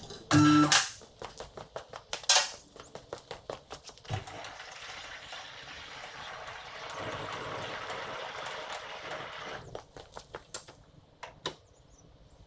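Metallic knocks and clinks of tools and car parts being handled. The loudest knocks come near the start, one with a short ringing tone. A steady hiss runs for about six seconds in the middle, followed by scattered light clicks.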